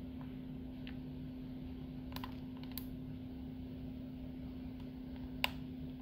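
Faint metallic clicks and ticks of a pick and tension wrench working the pin-tumbler cylinder of a Master Lock 570 padlock, a handful of scattered ticks with the sharpest about five and a half seconds in, over a steady low hum.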